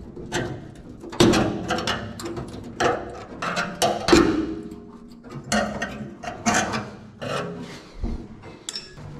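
Hand tools knocking, clanking and scraping against the steel inner body panels of a Triumph Spitfire's rear quarter, in irregular strikes several a second with short pauses. The loudest knocks come about a second in and again about four seconds in.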